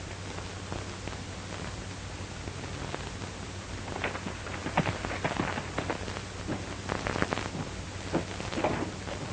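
Steady hiss and low hum of an old film soundtrack. From about four seconds in comes an uneven run of sharp knocks and clatters, the loudest sounds here.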